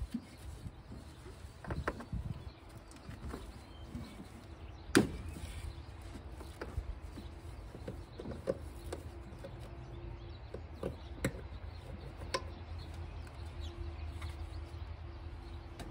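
Scattered light knocks and clicks, the sharpest about five seconds in, over a steady low hum.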